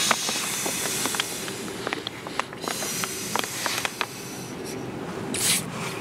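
Breath being blown through the valve of an inflatable ultralight camping pillow in long exhales, with the pillow's fabric crinkling and clicking. The blowing fades about two and a half seconds in, comes back more weakly for a moment, and a brief sharp hiss follows near the end.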